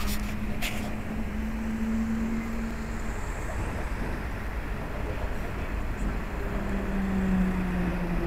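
City street traffic rumble, with a historic tram approaching on its rails in the second half: a low hum that grows stronger and a higher tone that slowly drops in pitch.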